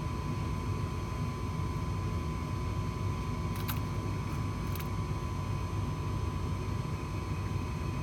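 Trane gas furnace's induced-draft motor running steadily at speed, a low rumble with a steady whine on top. This is the pre-purge at the start of a heat call, before the hot surface igniter comes on. Two faint clicks come about four and five seconds in.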